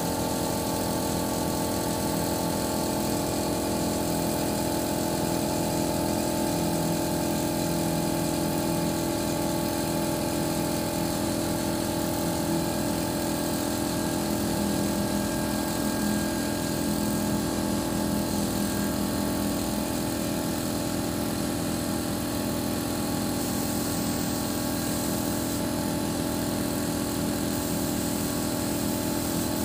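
An engine running steadily at a constant speed, with a steady hum and no change in pitch.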